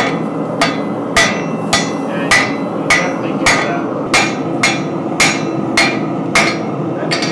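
Hand hammer striking a glowing-hot steel billet on an anvil in a steady rhythm of about two blows a second, each with a short metallic ring, over a steady background rush.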